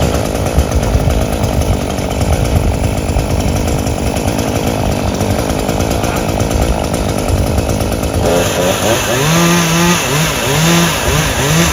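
Chainsaw cutting into an oak tree during felling: a loud, steady saw noise. About eight seconds in the sound changes to a rhythmic, pulsing pitched note.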